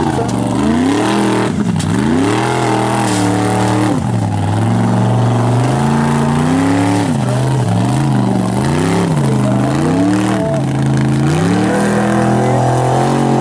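Formula Offroad hill-climb car's engine revving hard under full throttle. Its pitch drops and climbs again over and over as the driver works the throttle on the climb.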